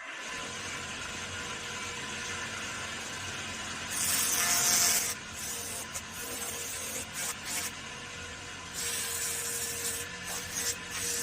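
Bursts of compressed air hissing, the loudest lasting about a second from four seconds in and shorter ones near the end, over a steady machine hum.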